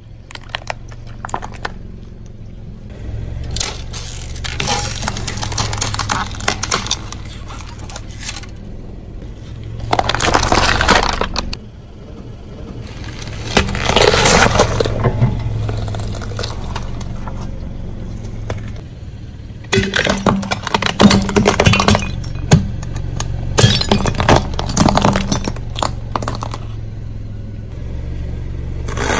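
A car tyre rolling slowly over brittle objects and crushing them: cracking and crunching in several bursts, with a dense run of sharp cracks in the last third. The car's engine runs steadily underneath.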